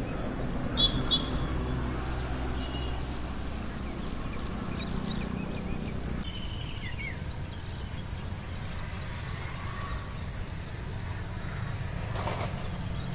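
Outdoor ambience dominated by a steady low engine hum, like a vehicle running nearby, with a few short high bird chirps in the first half and a brief sharp sound near the end.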